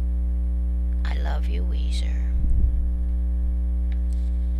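Steady electrical mains hum with its overtones, running under the recording, with a brief low thump about halfway through.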